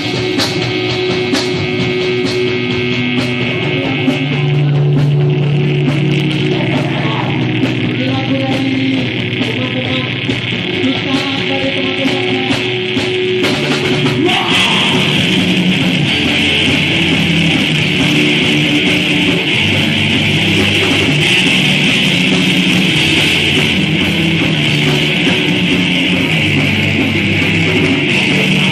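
Heavy rock music from a band: distorted electric guitars over drums, turning denser and noisier about halfway through.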